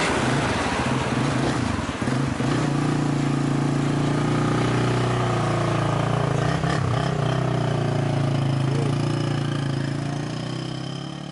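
Small motorcycle engine idling steadily close by, then fading near the end as the bike rides away.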